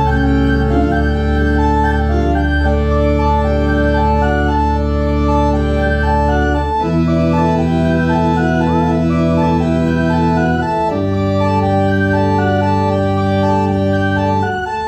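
Kimball theatre pipe organ playing held chords over a low bass line, the harmony changing about seven seconds in and again near eleven.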